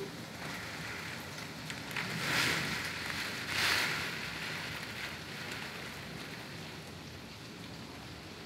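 Heavy rain pouring down steadily, with two brief louder surges of the downpour a couple of seconds and nearly four seconds in.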